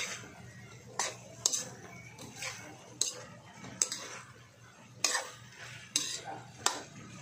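Metal spatula scraping and clinking against a metal wok as vegetables are stirred, with about eight strokes at uneven intervals of half a second to a second.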